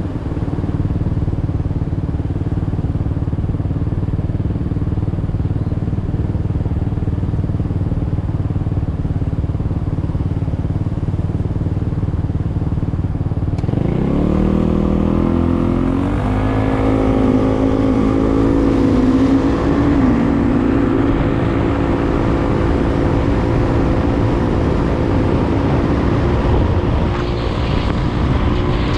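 Vehicle engine running low and steady, then, about halfway through, rising in pitch as it speeds up and holding a steady higher note.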